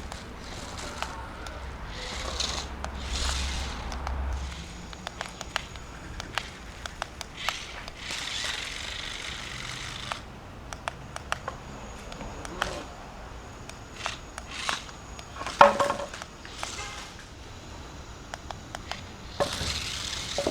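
Small toy RC monster truck with a 130 brushed motor driving over a ramp and rough ground: scattered clicks, knocks and rattles of its plastic-and-metal body and wheels, with a faint high motor whine partway through.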